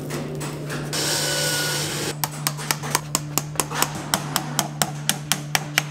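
Farrier's hammer driving a horseshoe nail into a hoof in quick, light, even taps, about five a second, starting about two seconds in after a hiss. A steady low hum runs underneath.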